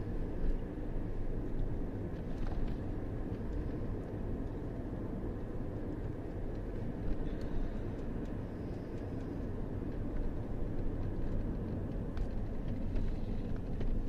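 Steady low rumble of a car's engine and tyres on the road, heard from inside the cabin while driving slowly.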